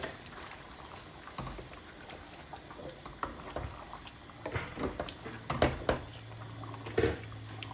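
Wooden spoon stirring a simmering fish and gourd curry in a stainless steel pot: faint bubbling with scattered knocks and scrapes of the spoon against the pot, the loudest a cluster about five and a half seconds in and one near seven seconds.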